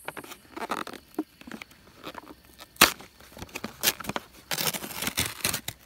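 Plastic wrap and lid of an instant noodle cup being torn and peeled open: irregular crinkling and crackling, with one sharp snap about three seconds in and a dense stretch of crackling near the end.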